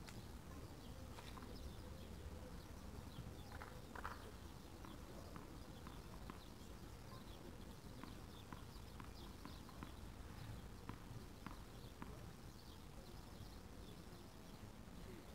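Faint tennis-court ambience with scattered light taps and ticks.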